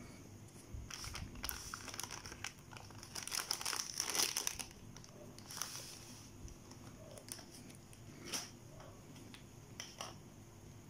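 Plastic food pouch crinkling and crackling as it is opened and a black plastic tray of wontons is slid out of it. The crinkling is densest and loudest about three to four seconds in, then thins to scattered crackles and clicks.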